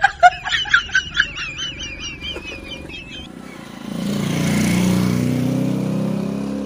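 A steel plate strikes the road and rings as it wobbles, about four pulses a second, fading out over about three seconds. About four seconds in, a motorcycle engine starts running steadily.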